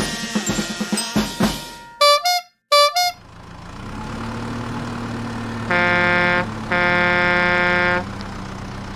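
Drum-beat music ends about two seconds in, followed by two short bright gliding tones. Then a vehicle engine idles steadily, and a horn honks twice over it, a short honk and then a longer one.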